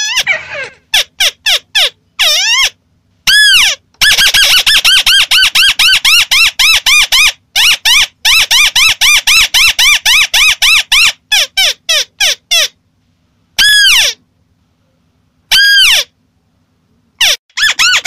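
Crakes calling: loud, fast runs of harsh chattering notes, about six a second, each note rising and falling in pitch, broken by short pauses and a few single downward-sliding calls.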